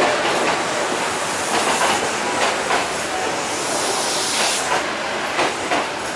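Kintetsu electric commuter train running past at close range, its wheels clacking over the track again and again above a steady rolling hiss.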